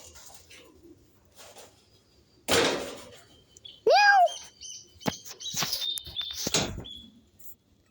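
High-pitched, toy-like sneeze sounds made for a stuffed animal: a breathy rush, then a short squeal that rises and falls in pitch, then several hissy bursts.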